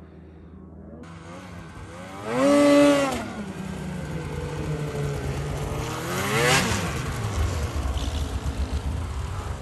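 Snowmobile engine revving as the sled speeds along the trail. Its pitch climbs and falls, loudest about two and a half seconds in, with a second rise and fall around six and a half seconds.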